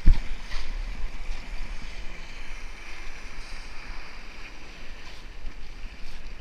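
Wind buffeting the microphone: a steady low rumble with hiss, opened by one sharp low thump.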